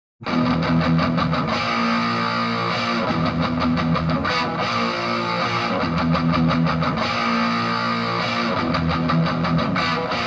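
Guitar-led music with held, repeating chords, starting abruptly just after the opening.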